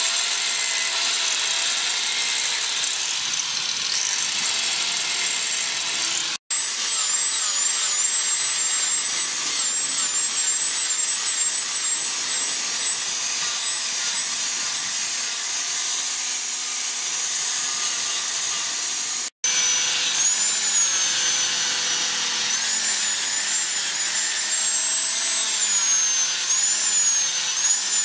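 Electric angle grinder with a sanding disc running continuously, a harsh grinding hiss under a high motor whine whose pitch wavers as the disc is pressed into a riveted wooden knife handle and then against the steel blade. The sound cuts out for an instant twice.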